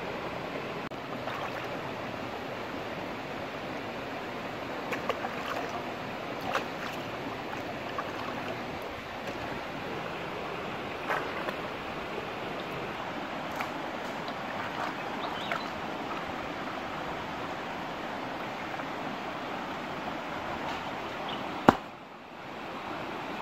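Shallow stream running over rocks, a steady rushing of water with scattered small splashes and clicks. A single sharp click near the end, followed by a brief dip in the sound.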